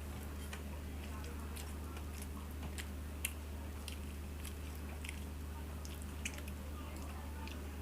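Close-up eating sounds: chewing and scattered small, sharp wet clicks from someone eating rice with mutton curry, over a steady low hum.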